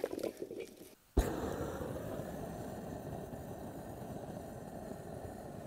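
Handheld butane gas torch burning with a steady rushing noise as its flame is played on firewood in a fire bowl to light it; the sound starts abruptly about a second in.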